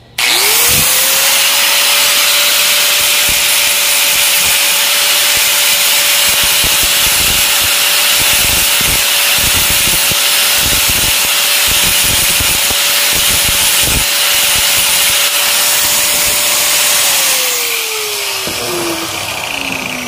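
Angle grinder spinning up at once to a steady high whine and grinding down the plastic hub of a washing machine pulsator, with irregular scraping as the disc bites. Near the end it is switched off and the whine falls as the disc winds down.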